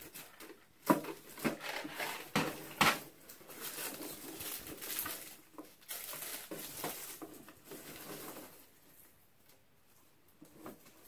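Hands rummaging in small cardboard boxes and handling packaged items: plastic and cardboard packaging rustling and crinkling, with several sharp knocks and taps in the first three seconds. It goes quiet about two seconds before the end.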